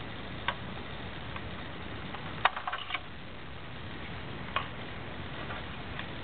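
Small electric motor turning a model waterwheel: a steady low hum with sharp clicks about every two seconds, the loudest a little before halfway, followed by a short run of lighter clicks.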